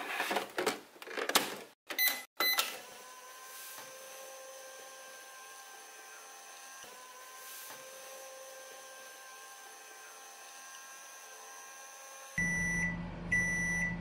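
Just Like Home toy microwave oven: a few clicks and knocks as the door is shut, two short button beeps, then a steady electronic running hum for about ten seconds, ending in two longer beeps that signal the cooking cycle is done.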